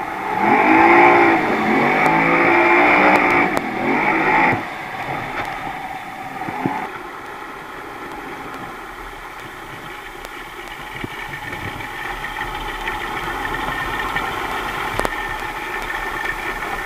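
Outboard motor of a Thundercat inflatable race boat, revving loudly with rising and falling pitch for the first four seconds or so, then running slow and steady at low revs.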